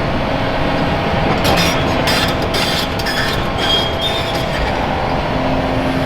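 Volvo EC480EHR excavator's diesel engine running steadily under load. From about a second and a half in until about four seconds there is a spell of rattling and scraping as the steel bucket handles crushed concrete, with a brief high metallic squeal near its end.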